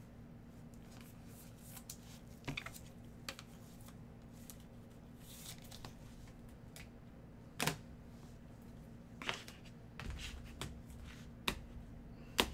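Trading cards and clear plastic card sleeves handled by gloved hands: scattered soft clicks and rustles, with a sharper snap about seven and a half seconds in and another near the end, over a faint steady hum.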